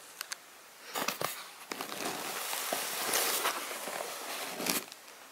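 Close handling noise of the camera moving over a cardboard box: two faint clicks at the start, then about a second in nearly four seconds of rustling and scraping with clicks, stopping abruptly near the end.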